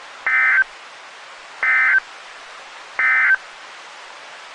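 Emergency Alert System end-of-message code from a NOAA Weather Radio broadcast: three short bursts of digital data warble, about 1.4 seconds apart, over steady radio hiss. The three bursts mark the end of the alert.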